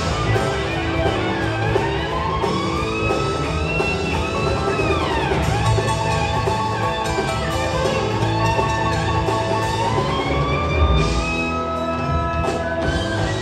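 A rock band playing live: an electric guitar lead of long held notes that bend and glide in pitch, with one deep downward swoop about halfway through, over bass, drums and keyboards.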